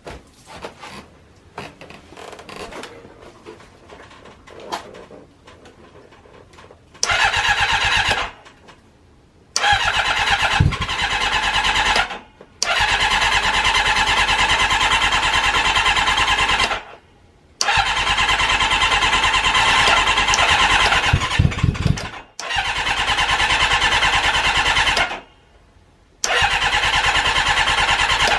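Kawasaki ZRX400 II's inline-four being cranked on the electric starter in about six attempts of one to four seconds each, beginning about seven seconds in. Each attempt cuts off without the engine settling into a steady idle: the bike is reluctant to start. Faint clicks and handling noises come before the first attempt.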